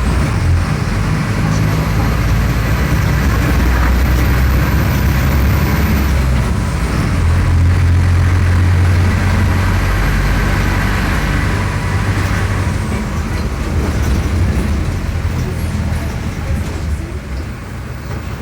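Mercedes-Benz OF-1418 bus's OM-904LA four-cylinder turbo-diesel engine running under way; its note changes about seven seconds in, then the sound eases off over the last few seconds.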